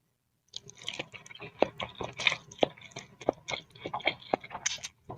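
Close-miked chewing and wet mouth sounds of someone eating boiled instant noodle soup, a quick irregular run of clicks and smacks that starts about half a second in.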